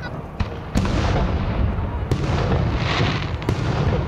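Aerial firework shells bursting overhead: several sharp bangs, the loudest about a second in, over a continuous low rumble of booms, with a spell of crackling hiss near the end.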